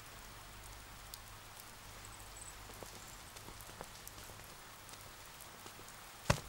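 Faint steady hiss with scattered soft ticks, then a sharp knock near the very end.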